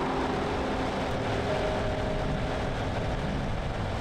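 Steady low rumble of heavy diesel trucks idling, with a few faint held tones over it.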